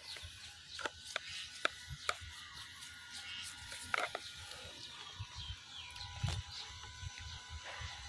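Scattered light clicks and taps of a small brush and fingers working over a lacquered carved wooden horse sculpture, with a faint background hum.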